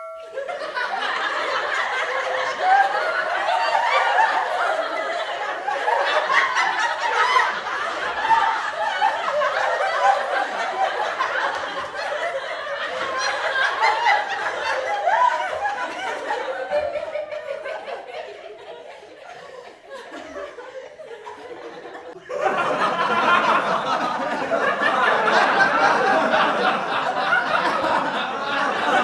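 Laughter sound effect: many voices laughing together in a dense, unbroken laugh track. It dies down over several seconds past the middle, then starts again suddenly at full strength about 22 seconds in.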